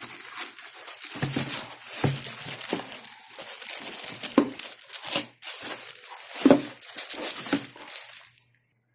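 Packaging crinkling and rustling as it is handled and unwrapped, with several knocks mixed in; it stops shortly before the end.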